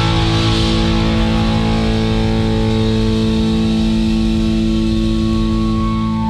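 Live rock band music: a guitar chord held and left ringing steadily over the bass, with cymbal wash fading over the first few seconds.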